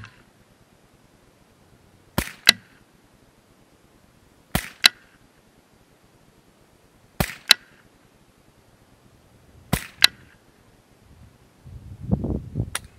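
Savage 64F semi-automatic .22 LR rifle firing four shots, one about every two and a half seconds, each heard as two sharp cracks about a third of a second apart. Near the end there is a low rumble of handling noise and a single click.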